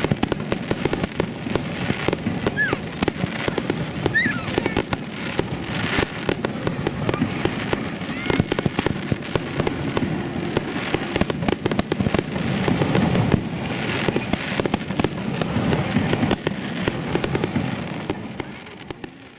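Fireworks display: a rapid, continuous barrage of aerial shell bursts and crackling star pops.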